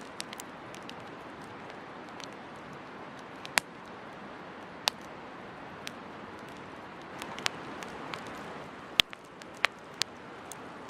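Wood campfire burning with a steady soft hiss, broken by sharp crackles and pops at irregular moments, several of them loud snaps.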